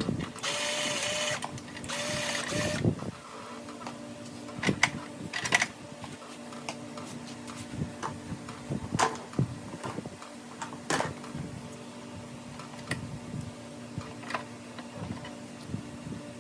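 A cordless power driver runs in two short bursts near the start, backing out the bolts that hold the fuel tank on a small Briggs & Stratton mower engine. Then come scattered light clicks and knocks of tools and metal parts being handled.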